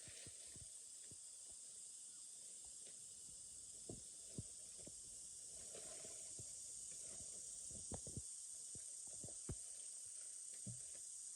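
Faint, steady high-pitched hiss of outdoor ambience, with scattered light knocks and clicks a few seconds apart.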